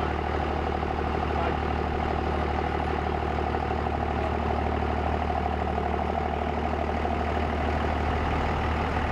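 Pickup truck engine idling steadily with a low, even hum.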